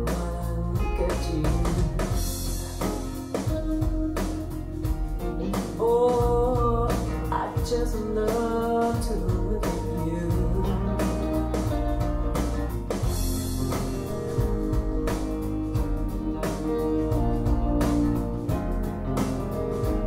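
Rock song played back through B&W 685 S2 bookshelf speakers, with a steady drum beat, guitar and a singer's voice coming in about six seconds in.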